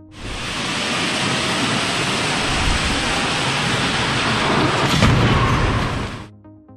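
Frontal crash test of an Ora Funky Cat against a mobile progressive deformable barrier trolley, both at 50 km/h. A steady rushing noise builds as the car and trolley are towed in. They meet head-on about five seconds in with a loud crash, the loudest moment, and the sound stops abruptly about a second later.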